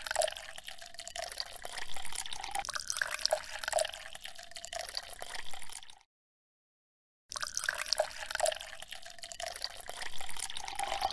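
Water trickling and dripping, with many small splashes. It breaks off abruptly about six seconds in and starts again a second later.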